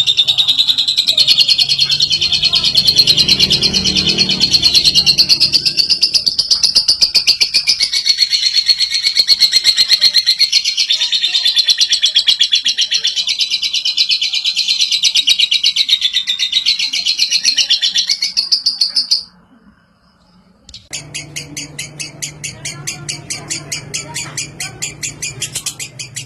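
Lovebird ngekek: one long, unbroken, rapid high chattering trill held for about nineteen seconds, the drawn-out song that lovebird keepers prize. It cuts off abruptly. After a short silence a different, more regular pulsing sound begins, with a low hum under it.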